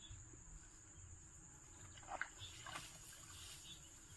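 Faint rural field ambience: a steady high-pitched insect drone, like crickets, with a few soft brief sounds about two seconds in.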